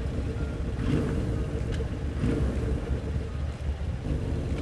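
Motorcycle engine idling with a low, uneven rumble in stopped traffic.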